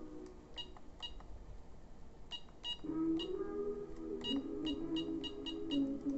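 Vintage Fujitsu Ten car audio head unit giving short, high key beeps as its front-panel buttons are pressed. There are a few spaced beeps at first, then a quick run of them, several a second, from about four seconds in.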